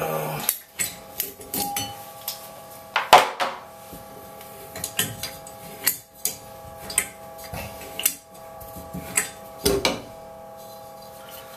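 Old metal bathtub spout being unscrewed by hand from its threaded pipe: irregular clicks, clinks and knocks of metal as it turns, the loudest knock about three seconds in.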